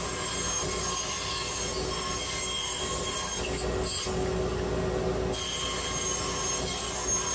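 Bandsaw running with a steady whine as its blade cuts curves through thin plywood.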